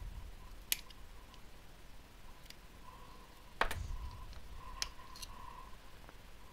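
A few sharp clicks and taps of small hand tools on a circuit board, the loudest about three and a half seconds in, as a shorted diode is removed from the ignitor's board.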